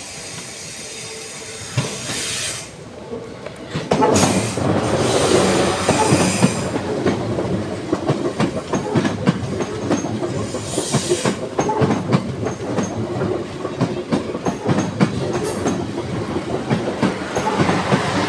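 South Western Railway electric multiple-unit train passing close over a level crossing. It starts faint as it approaches, gets loud about four seconds in, and then runs steadily with rapid clicking and clattering from its wheels on the rails.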